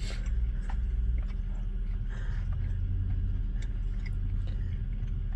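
Chewing and small mouth clicks as a piece of sauced chicken is eaten, over a steady low hum.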